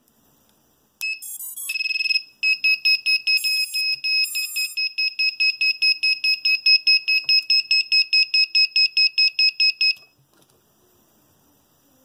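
Electronic beeping: a short run of quick stepped tones about a second in, then a steady train of high beeps at one pitch, about four a second, that stops abruptly near the end.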